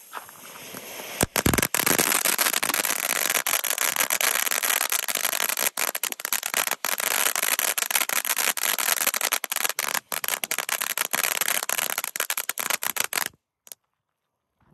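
Consumer crackling fountains burning: a loud, steady hissing spray thick with rapid crackles, starting about a second in and cutting off suddenly near the end.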